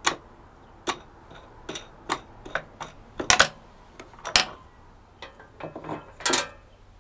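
Steel bolt, washer, wing nut and small plywood blocks being handled and fitted by hand: a string of irregular clicks and light knocks of metal and wood, with louder knocks about three and four seconds in and a short rattle near the end.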